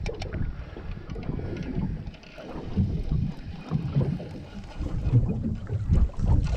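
Wind buffeting the microphone: an uneven low rumble that rises and falls in gusts, with a few faint ticks.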